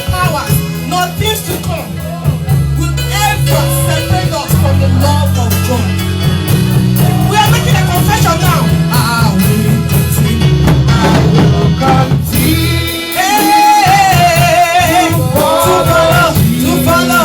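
Music with singing over a steady bass line, likely background or outro music.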